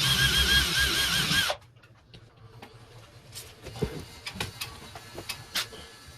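Power drill running in one burst of about a second and a half, its motor whine wavering in pitch, then stopping; scattered clicks and knocks of handling follow.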